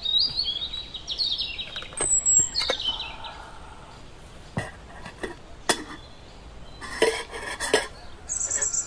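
Birds singing: runs of quick falling chirps and a high falling whistle in the first three seconds and again near the end. In between, a few sharp knocks and a short clatter of a metal cooking pan being handled.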